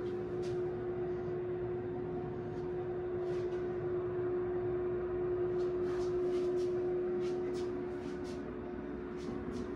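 Steady machine hum with one held mid-pitched tone over a low rumble, with scattered light ticks, more of them in the second half.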